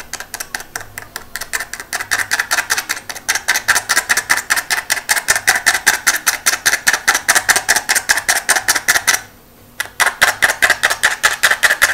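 A needle rapidly poking holes in three layers of aluminium foil stretched over a glass hookah bowl: a fast run of sharp pops, about six a second. It breaks off briefly near the end, then resumes.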